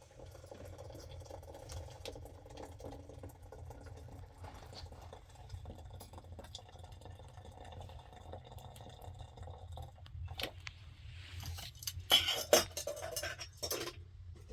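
Small knocks and clinks of things being handled, over a steady low hum, with a louder burst of clattering knocks near the end.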